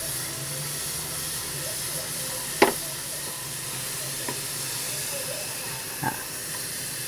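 Udon noodles deep-frying in a small saucepan of hot oil: a steady sizzle. A utensil knocks sharply against the pan about two and a half seconds in, and more softly around six seconds.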